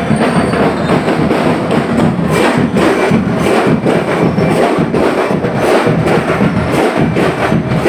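Loud parade music driven by drums and sharp percussion clicks, beating a steady rhythm.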